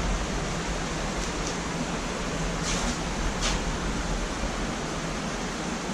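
Steady rushing of a waterfall, an even wash of noise with a low rumble. A couple of brief soft rustles come near the middle.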